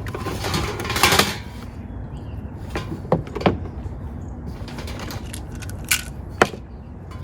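Parts being handled and unpacked: a rustle about a second in, then a few sharp clicks and knocks as pieces are set down, over a steady low hum.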